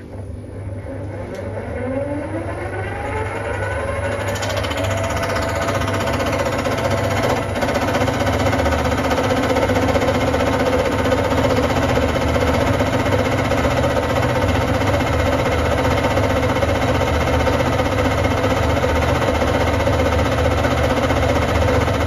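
Centec 2B horizontal milling machine starting up: the whine of the motor and spindle drive rises in pitch over the first several seconds as the side-and-face cutter on the arbor spins up, then settles into a steady run with a low hum.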